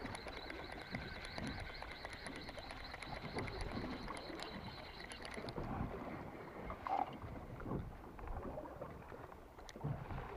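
Wind and choppy sea water slapping against a small fishing boat at sea, with a faint high whine that cuts off about halfway through.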